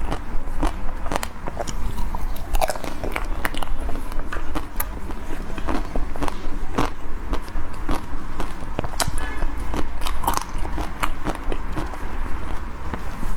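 Close-miked biting and chewing of a crunchy chocolate-coated ice cream bar: the hard chocolate shell cracks in many sharp, crisp crunches all through.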